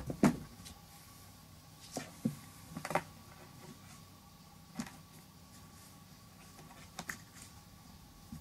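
Cat landing in a cardboard box with a loud thump and cardboard rattle, then scattered knocks and scrapes of the cat shifting about inside the closed box.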